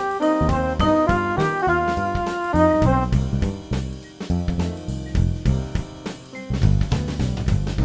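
Background music: an instrumental track with a drum-kit beat, bass and a melodic line of short pitched notes.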